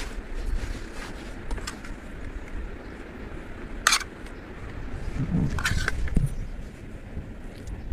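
A metal spoon clicking and scraping against a metal pan as filling is scooped out, a few sharp clinks, the loudest just before the middle and a small cluster later, over a steady low rumble.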